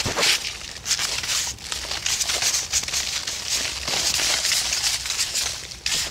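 A brush scrubbing over fresh cement packed between the stones of a wall, in repeated, irregular scratchy strokes, tidying the rough mortar joints.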